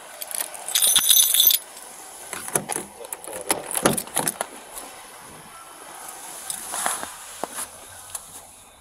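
Police SUV's door being opened and got into: a jangle of metal about a second in, then a run of sharp clicks and knocks from the door latch and the door.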